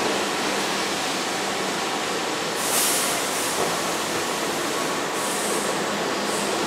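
Keihan 2600-series electric train standing at the platform, its equipment giving a steady noisy hum. Two short hissing bursts come about two and a half and five seconds in.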